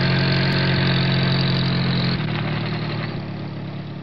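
A car engine sound effect running steadily, changing note about two seconds in and then fading gradually.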